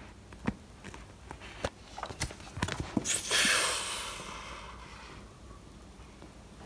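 Handling noise from toys being moved: scattered light taps and clicks, then a soft rushing whoosh about three seconds in that fades away over a couple of seconds.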